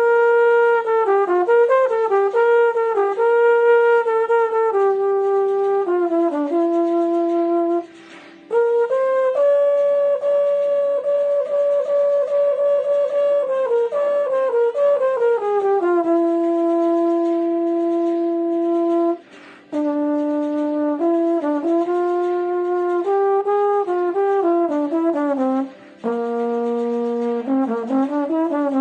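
A solo brass instrument playing a slow melody of held notes, one line at a time, in four phrases with short pauses between them. The player, out of practice, says his wind and lips were tiring.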